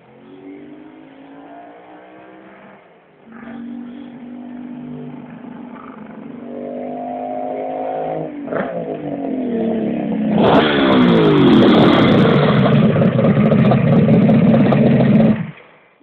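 Kawasaki H2A 750SS Mach IV two-stroke triple motorcycle approaching, its engine note rising and dropping through gear changes as it grows louder. It is very loud close by from about ten seconds in, then stops abruptly near the end.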